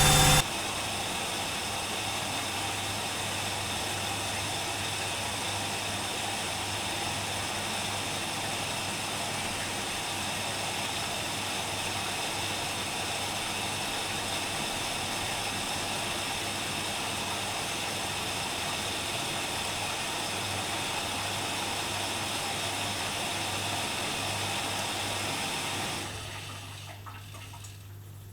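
Privileg Dynamic 4612 washing machine: a loud motor whine cuts off right at the start, then water rushes steadily through the machine over a low hum. The rushing fades away about two seconds before the end.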